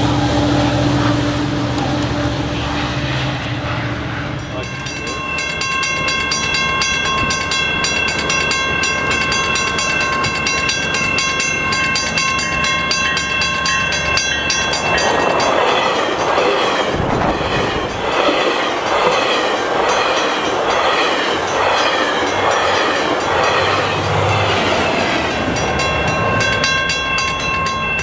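Level-crossing warning bell ringing steadily from a few seconds in, and about halfway through a bilevel commuter train passes with a dense rumble and clatter of wheels on rail for about ten seconds. A low engine drone comes before the bell starts.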